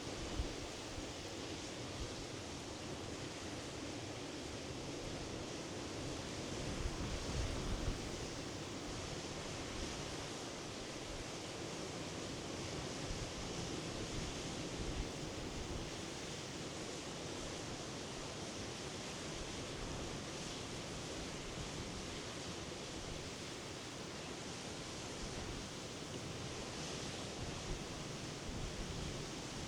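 Sea surf washing against the shore, a steady wash of noise with a deeper rumbling swell about seven seconds in.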